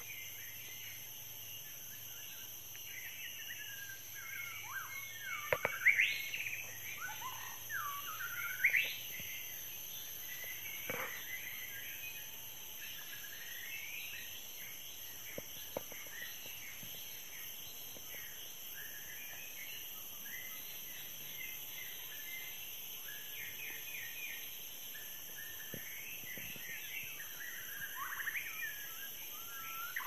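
Forest birds singing and calling in many short, varied whistled phrases, busiest and loudest about five to nine seconds in, over a steady high-pitched drone of insects.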